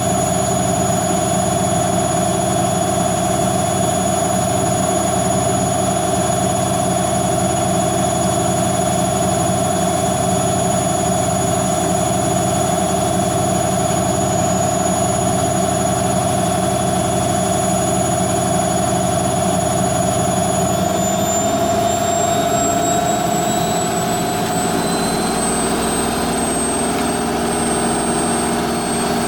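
Hoover Quattro AE130 washing machine on its fast final spin: the drum and motor run with a steady high whine. About two-thirds of the way through, the whine rises in pitch as the spin speeds up, then holds at the higher pitch.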